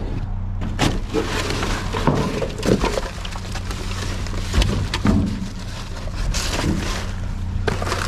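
Irregular knocks, scrapes and clatters of junk being rummaged through, over the steady hum of an idling vehicle engine.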